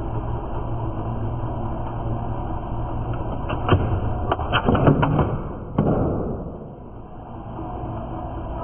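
Wood lathe running with a turning tool cutting the spinning wooden piece. About three and a half seconds in comes a rapid series of sharp knocks as the tool catches and a chunk tears out of the workpiece, with one more hard knock. Then the lathe's hum dies away as it is shut off.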